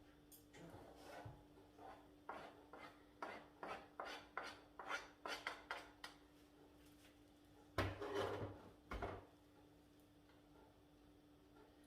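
Knife slicing sun-dried tomatoes on a cutting board: a run of quick, light cuts, about two to three a second, then a louder knock and scrape about two-thirds of the way through.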